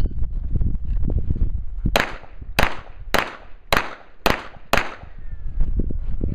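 Six pistol shots fired in quick, even succession, about one every half second, starting about two seconds in.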